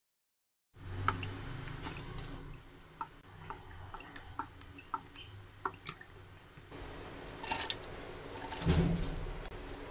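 Cooking oil heating in a large aluminium pot, giving off scattered small pops and ticks. Near the end there is a louder burst of noise as sliced onions are tipped in from a plate.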